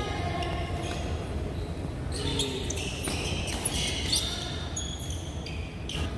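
Badminton doubles rally: rackets striking the shuttlecock several times and court shoes squeaking on the mat, with a steady low hum in a large echoing hall.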